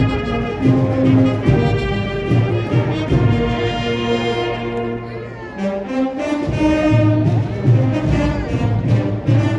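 Spanish processional band (agrupación musical) playing a march: trumpets and trombones hold sustained chords over a steady low beat, with the low end dropping out briefly about halfway through before the full band comes back in.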